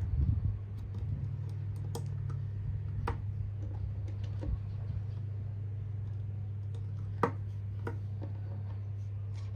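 Small plastic building bricks clicking as they are handled and snapped together, with irregular sharp clicks, the loudest about seven seconds in, over a steady low hum.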